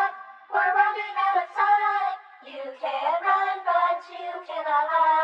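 A lone voice singing a slow line, thin-sounding, with no bass, drums or instruments under it.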